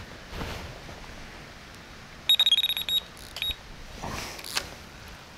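Electronic carp bite alarm bleeping: a rapid string of high beeps lasting under a second about two seconds in, then a couple more beeps just after.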